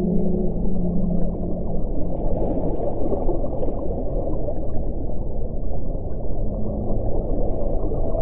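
Underwater recording of whale calls: a low moaning tone that steps down in pitch over the first two seconds, and another brief low tone about six and a half seconds in. Under the calls is a steady underwater rush with scattered faint clicks.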